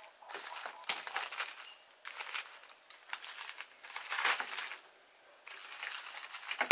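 Aluminium foil crinkling in several bursts as a foil packet is pulled open and folded back by hand.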